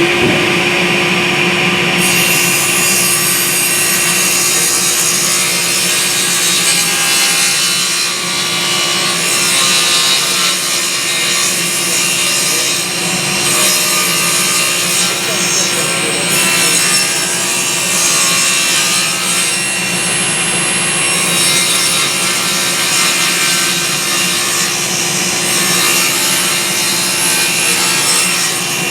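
Table saw running steadily, its blade ripping a straight edge along a crooked board clamped to a jointer sled, a steady motor hum under the noise of the cut.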